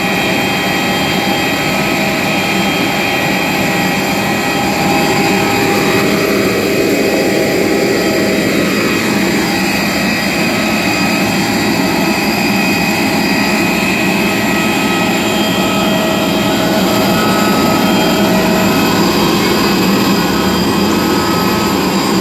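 Parked jet airliner's turbine running steadily: a constant rush with several high whining tones held level. About six seconds in, one tone slides down in pitch over a few seconds.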